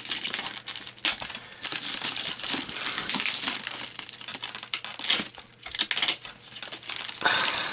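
Plastic shrink wrap crinkling and crackling as hands pick at and pull on it, in an irregular run of rustles with brief lulls about a second in and again near the middle.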